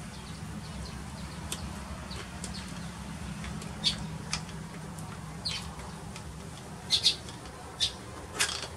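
Pliers clicking and snipping as wire is stripped and twisted onto a small electric motor's terminals: a few sharp clicks at uneven intervals, the loudest a quick pair near the end, over a steady low hum.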